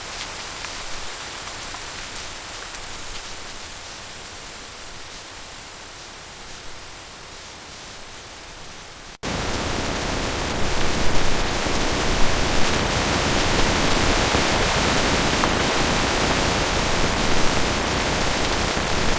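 Steady rain hiss. About nine seconds in it cuts off for an instant and comes back as a clearly louder, heavier downpour, with a few brief louder spikes.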